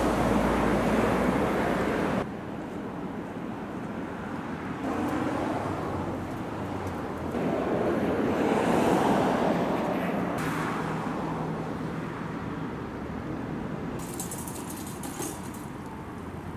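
City street traffic noise, with cars passing on the road. The sound shifts abruptly several times where the recording is cut, and swells for a few seconds near the middle as a vehicle goes by.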